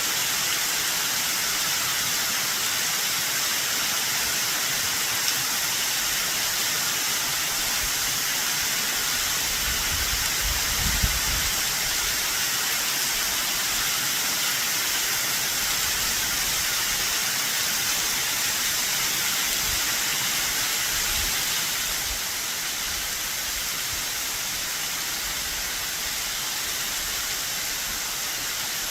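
Waterfall in high spring run-off, a steady rushing hiss of falling and splashing water. A brief low rumble comes about ten seconds in, and the level drops slightly near the end.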